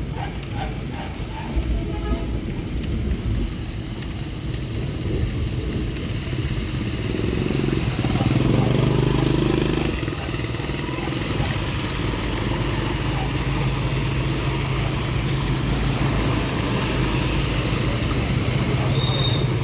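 Motor scooters riding through floodwater, their engines running as they pass, with water thrown up from the wheels; the loudest pass comes about eight to ten seconds in.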